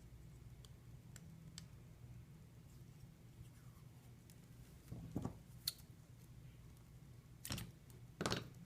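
Small clicks and short rustles from handling tape and small tools at a repair bench, over a steady low hum: a few faint ticks at first, then several louder, brief crackles in the second half.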